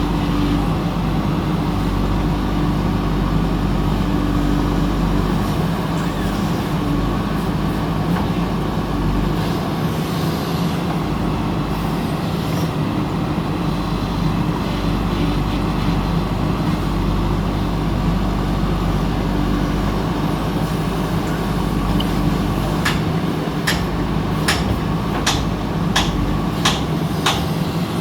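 Diesel engine of a JCB backhoe loader running steadily under work. Near the end comes a quick run of about seven sharp knocks.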